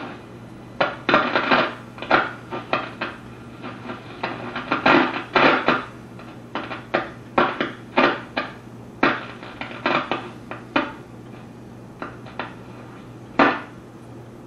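A six-tube Crosley 66TC radio's speaker on shortwave as the dial is tuned: irregular short bursts of crackle and fragments of signal come and go over a steady low hum.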